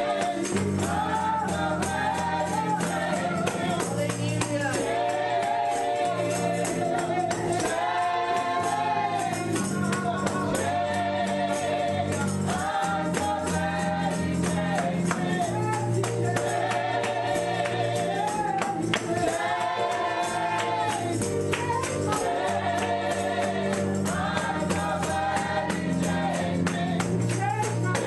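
Gospel music: voices singing together, with a tambourine shaking a steady beat over sustained low instrumental notes.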